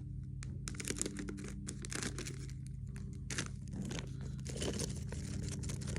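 A Lego minifigure blind-bag packet being torn open and crinkled by hand: a run of quick, irregular crackles and rustles.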